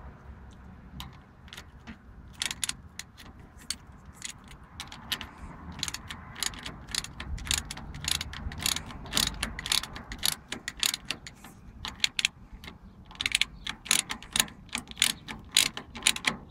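Socket ratchet clicking in runs of quick clicks as a nut is tightened on the starter motor's solenoid terminal to fasten a battery cable. The clicking is busiest in the middle and near the end.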